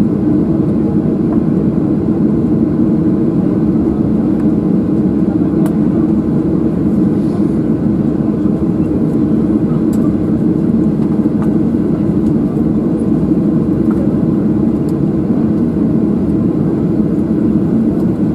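Steady cabin drone of a Boeing 737-700's CFM56-7B engines at idle thrust while the airliner taxis, heard from a seat over the wing.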